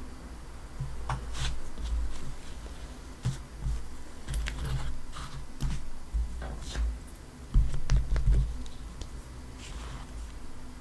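Small clicks, taps and scratches of hands handling a 1:7-scale miniature AKM model and setting it down on a tabletop, with a few heavier dull knocks about eight seconds in.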